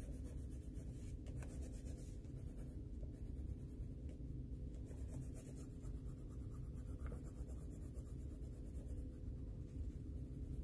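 Colored pencil scratching over paper in small, continuous blending strokes, with a steady low hum running underneath.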